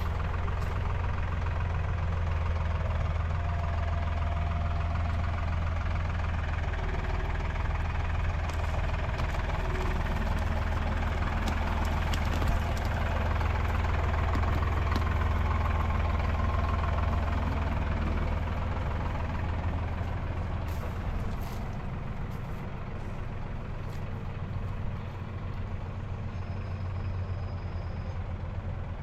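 An engine running steadily with a low hum, easing off a little about two-thirds of the way through.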